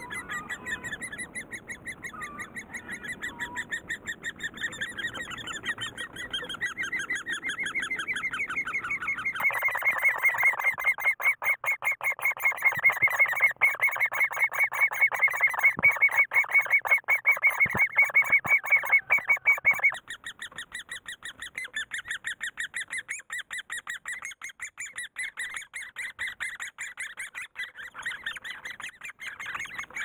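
Great spotted woodpecker nestlings begging, a rapid, unbroken chatter of short calls. From about a third of the way in it turns much louder and fuller, heard from inside the nest cavity, and drops back to a more distant chatter about two-thirds of the way through.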